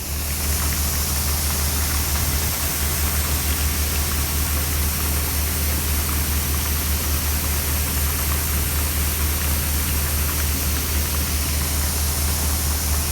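An engine running steadily at idle, its low firing pulse under a loud, even hiss. It comes in suddenly at the start.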